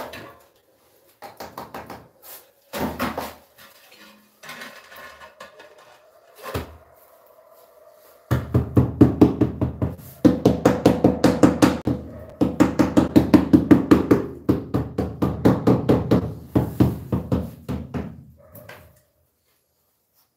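Rubber mallet tapping a large ceramic floor tile down into its bed of tile adhesive: rapid, even taps in three long runs with short breaks, stopping about a second before the end. Before the tapping, scattered knocks as the tile is set in place.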